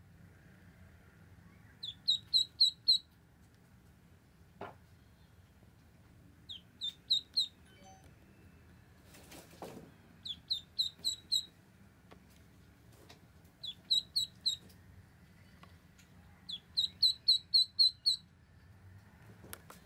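Ducklings peeping: quick bursts of three to six short, high peeps every few seconds. A brief rustle comes about halfway through.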